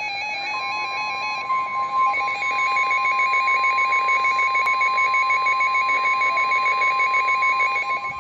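Emergency Alert System attention signal announcing a severe thunderstorm warning: a steady tone near 1 kHz comes in about half a second in and holds, over a fast-stepping two-pitch warbling tone.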